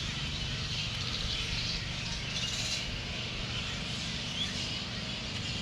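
Birds chirping and twittering steadily, with a steady low rumble underneath.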